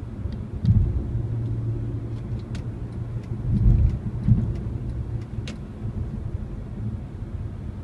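Steady low rumble of a Mercedes-Benz car driving at highway speed, heard from inside the cabin. A few louder low thumps come about a second in and again near the middle.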